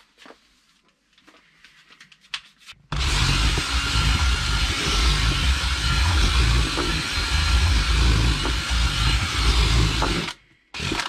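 Cordless drill with a paddle mixer running steadily in a bowl of damp groundbait, churning in freshly added molasses. It starts about three seconds in and stops suddenly about a second before the end, after a few light handling knocks.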